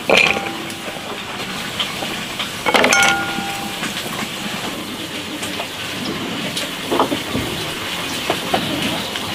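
Handfuls of thin-sliced green fruit or vegetable dropped into a glass bowl, landing with a clatter at the start and again about three seconds in, the glass ringing briefly after each. A steady hiss runs underneath, with a softer knock later.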